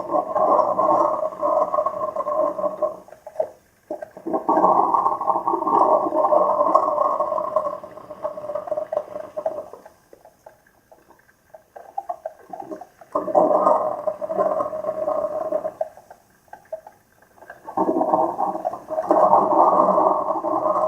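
Two coffee makers brewing together, running in loud bursts of several seconds with short quiet gaps between them: about four bursts.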